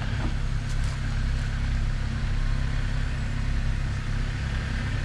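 Jeep Wrangler Unlimited engine running at low revs as the Jeep crawls slowly over rocks, a steady low rumble, with a couple of faint clicks about a second in.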